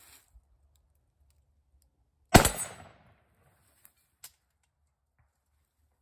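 A single loud gunfire-range bang about two seconds in, ringing off briefly, followed by two faint clicks.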